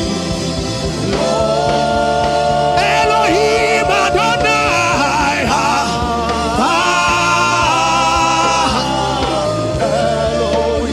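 Gospel worship music: singing in long held and gliding notes over a steady sustained instrumental backing.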